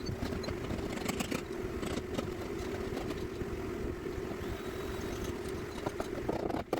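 A motor or engine running steadily with a constant low hum.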